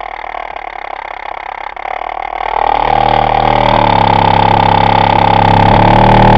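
Tang Band 5-1/4-inch dual-spider subwoofer driven hard on a steady low bass tone at full cone excursion. It makes a harsh, buzzing scratch: the voice coil rubbing, after a failed spider repair with the wrong CA glue. The sound grows much louder about two and a half seconds in and then holds steady.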